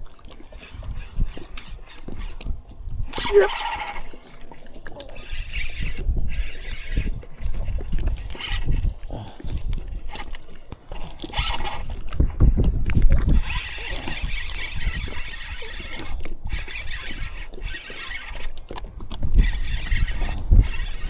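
Fishing reel being cranked in, in runs of one to several seconds with short pauses between, retrieving a jig.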